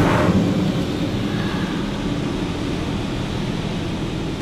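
High-pressure rinse jets of a touch-free automatic car wash hitting the windshield, heard from inside the truck's cab. The spray moves off just after the start and a steady low rumble remains.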